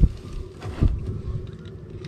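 Wind buffeting the microphone in irregular low rumbles, with two dull thumps: one at the start and one just under a second in.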